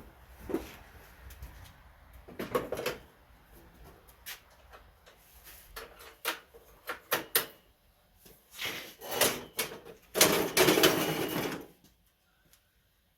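Scattered clicks and knocks of objects being handled, with a louder noisy sound lasting about a second and a half near the end.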